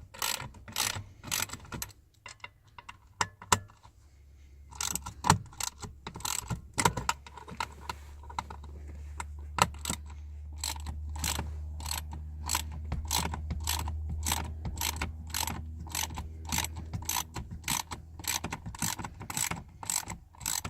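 Small hand ratchet clicking in steady strokes, about two or three clicks a second, as it backs out T30 Torx screws; the clicking pauses for a couple of seconds near the start.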